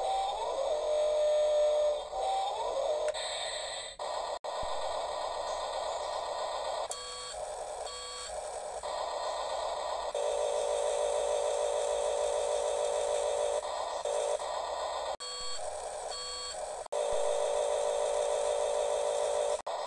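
Electronic beeping and tone effects from a battery toy's sound chip, steady and warbling. The sound breaks off and restarts abruptly several times.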